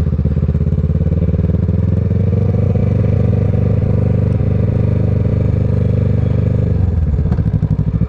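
Kawasaki ER6N's parallel-twin engine, fitted with a Scorpion exhaust, running at low, steady revs while the bike is ridden. The revs drop briefly about seven seconds in and then pick up again.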